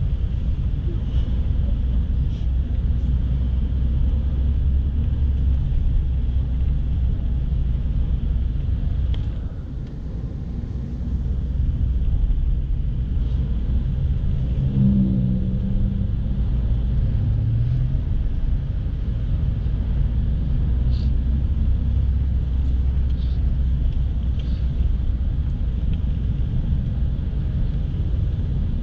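Inside a moving car's cabin: a steady low rumble of engine and road noise. It drops briefly about ten seconds in, and an engine note rises for a couple of seconds around fifteen seconds in.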